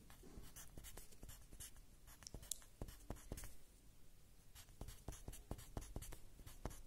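Pencil scratching on lined notebook paper in many short, quick strokes as a honeycomb of hexagons is drawn; faint.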